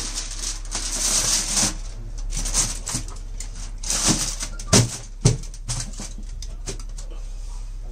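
Aluminium foil crinkling as it is pressed over a large aluminium cooking pot, then the aluminium lid being set on with two sharp metal knocks about half a second apart, a little past halfway through. The pot is being sealed to trap the smoke of oil-doused charcoal in the rice.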